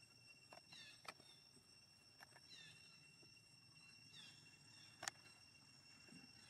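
Near silence: faint outdoor ambience with a steady high whine, a faint falling chirp that repeats every second and a half or so, and a few light clicks, the sharpest about five seconds in.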